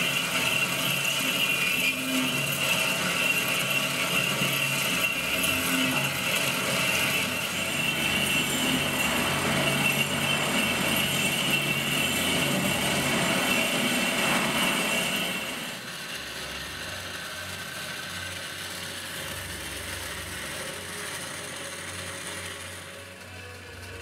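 Metal-cutting band saw running, its WESPA blade sawing through metal stock clamped in the vise with a steady, high-pitched ring. About fifteen seconds in, the sound drops noticeably quieter and goes on steadily.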